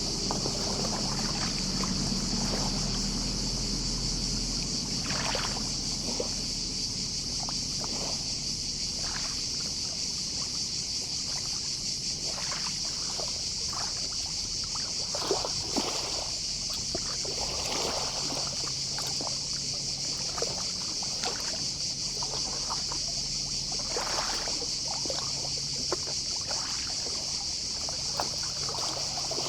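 Gentle sea waves lapping at the shoreline in small, irregular splashes, under a steady high-pitched chorus of distant cicadas.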